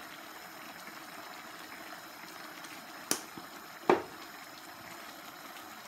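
Tomato-based paella sauce simmering and bubbling steadily in a wide pan, stirred with a wooden spoon that knocks sharply against the pan twice, about three and four seconds in.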